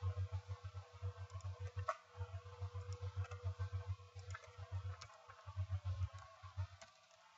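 Scattered light clicks of a computer mouse and keyboard, a few keystrokes and clicks spread out with gaps, over a low electrical hum that keeps cutting in and out.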